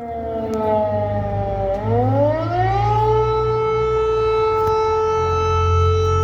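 Civil-defence air-raid siren wailing loudly. Its pitch sinks for nearly two seconds, rises again over the next second, then holds one steady tone.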